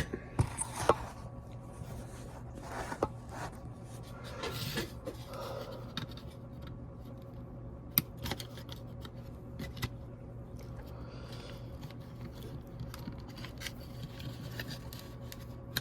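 Small clicks and scrapes of plastic parts being worked by hand, as a retaining tab on a VW Mk3 heater control unit is pushed aside and the back of the part is slid up. A sharp click about eight seconds in, over a steady low hum.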